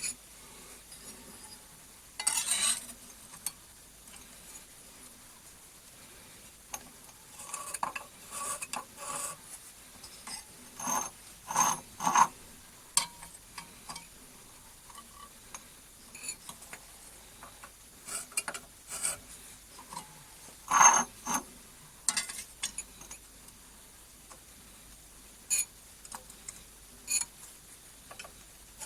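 Irregular clinks, taps and rubbing of small metal objects being handled and set down, with the loudest clatter about two-thirds of the way through.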